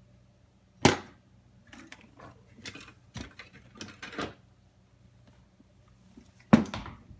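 Metal cutlery clinking and rattling as utensils are pulled from a dishwasher's cutlery basket. There is a sharp clink about a second in, a run of lighter clicks and rattles through the middle, and a louder clank near the end.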